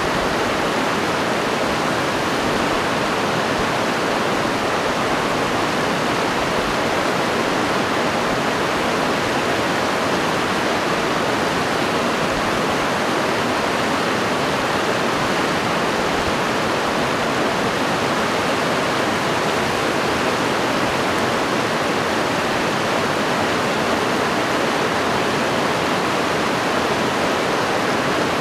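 Fast mountain stream rushing over rocks: a loud, steady, unbroken rush of white water.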